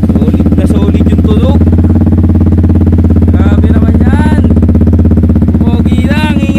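Yamaha XSR155's single-cylinder engine idling through a freshly fitted SC Project aftermarket exhaust: a loud, steady, deep exhaust note with even firing pulses.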